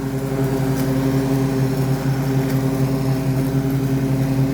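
Zero-turn lawn mower's engine running steadily at working speed, a constant even drone.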